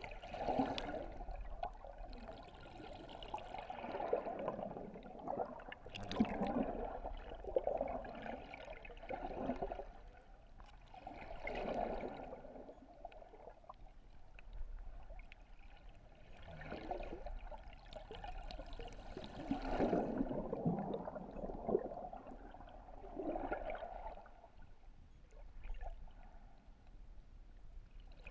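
Surf surging over a shallow rocky reef, heard from underwater: rushing, bubbling water swells up and dies away every one to three seconds as waves wash through, with a sharper crackle about six seconds in.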